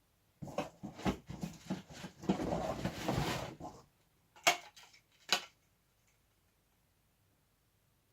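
Handling and unpacking noises: irregular rustling and clattering of hard plastic parts, thickest between about two and four seconds in, then two sharp knocks a little under a second apart.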